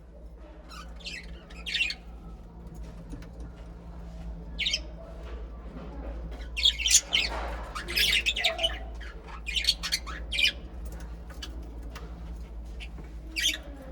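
Budgerigars chirping and squawking in short, sharp, high calls, scattered at first and coming thick and fast in the middle, over a faint steady low hum.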